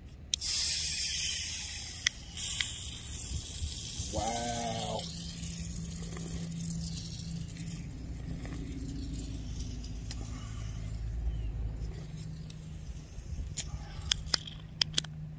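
A can of nitrogen-infused Pepsi Nitro cracking open: a sharp snap, then a long loud hiss of escaping gas, with a second snap and hiss about two seconds in. A low steady hum runs underneath, and a few sharp clicks come near the end.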